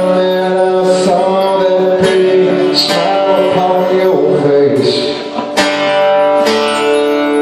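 Live band playing through a PA: electric guitars and drums under long held sung notes, with a drum stroke about once a second.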